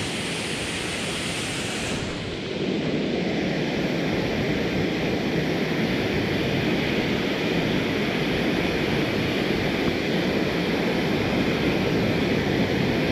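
Waterfall and stream water rushing in a steady roar. About two and a half seconds in it turns deeper and a little louder, then holds steady.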